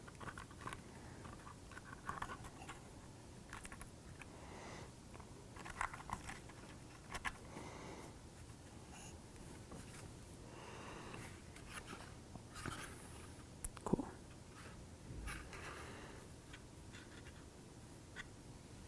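Faint handling of small laser-cut wooden kit pieces: scattered light taps, clicks and scraping, with one sharper click about fourteen seconds in.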